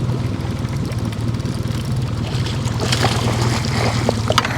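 Boat motor running steadily at idle, with a few sharp clicks and taps late on.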